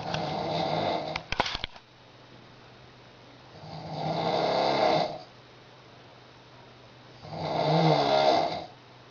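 A woman snoring loudly in her sleep: three heavy snores about three and a half seconds apart, each swelling and then cutting off, the first breaking into a few sharp clicks near its end.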